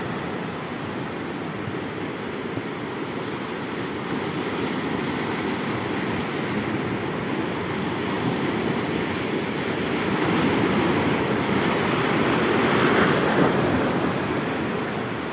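Sea surf washing in over shore rocks, a steady rush that swells louder for a few seconds about ten seconds in as a wave breaks and runs in, then eases off.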